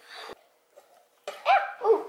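A brief scraping noise, then several short, loud, high-pitched wordless vocal sounds with sliding pitch in the second half.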